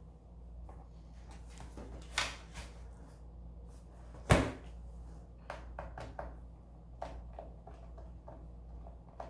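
Small clicks and knocks of a screwdriver and loose screws against a laptop's plastic bottom case as the back screws are taken out, with one sharp knock about four seconds in and another about two seconds in.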